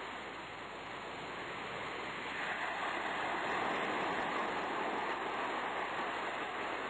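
Sea surf washing as a steady hiss, swelling about two to three seconds in and then holding.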